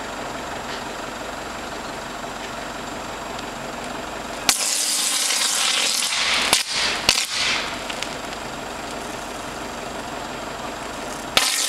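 Short-circuit arc at an old oil-filled 230 V cable on a utility pole: about four and a half seconds in it flares up suddenly into a loud, spitting, sizzling rush with several sharp bangs over the next few seconds, then flares up again suddenly near the end.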